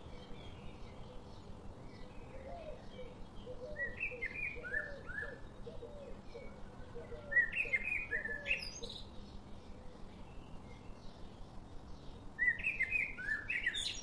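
Small songbirds chirping, with three louder bursts of short down-slurred whistled notes about four, seven and a half and twelve and a half seconds in.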